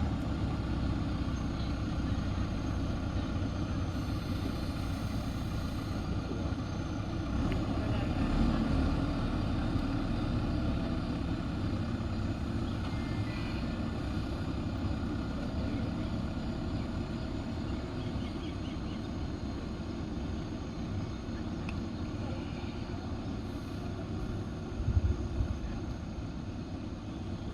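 JCB 3DX backhoe loader's diesel engine running steadily, with a short clatter near the end.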